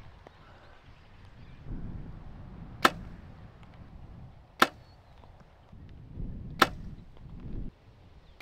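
Compound bow being shot, four sharp shots about two seconds apart, with a low rumble between some of them.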